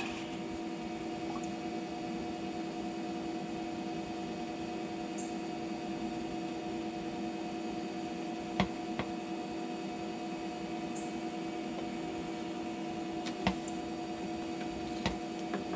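Steady mechanical hum with a stack of steady overtones, and a few light knocks and clicks of PVC pipe and fittings being handled: two a little past halfway and a few more near the end.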